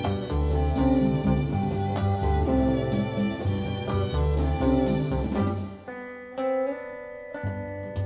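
Background music. About six seconds in it thins out to a few held notes, then the bass and beat come back.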